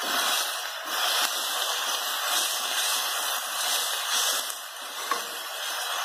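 Chopped elephant foot yam leaves sizzling in a metal wok as they are stirred and tossed with a metal spoon, the hiss swelling with each stroke. There is one sharp clink of the spoon on the pan about five seconds in.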